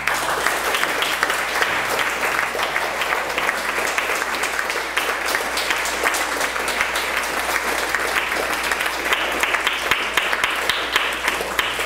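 Lecture audience applauding: many hands clapping steadily for about twelve seconds, thinning out near the end.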